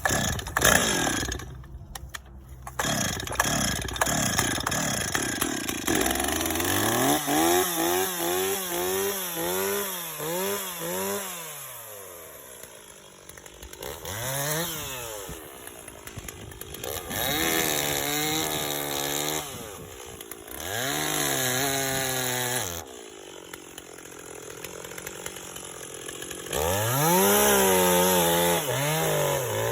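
Gasoline chainsaw running, its engine revved up and let fall back to idle over and over, several times in a row from about seven seconds in. Knocks and clatter come before the revving starts.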